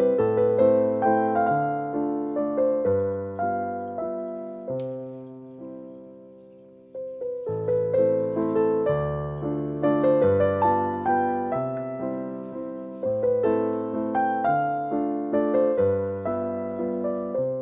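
Background piano music: a gentle, steady melody of separate notes. It dies away about five seconds in and starts again about two seconds later.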